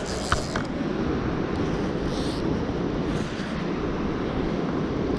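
Steady rushing of flowing river water, with one short click about a third of a second in.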